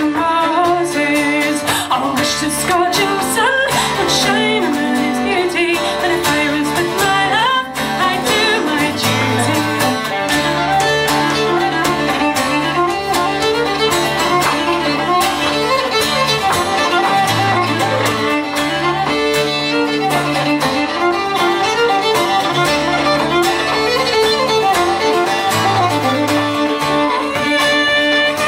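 Folk band playing an instrumental break of a traditional English song, the fiddle carrying the melody over a steady accompaniment.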